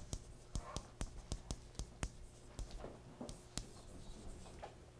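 Chalk writing on a blackboard: a run of sharp, irregular taps and short scratches as each stroke lands, thinning out after about three and a half seconds. A faint steady hum sits underneath.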